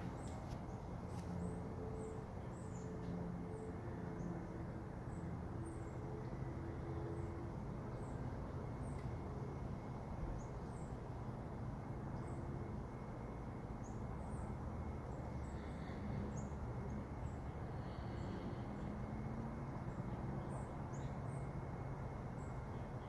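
Faint small-bird chirps, short and high, repeated every second or so over a steady low rumble of background noise.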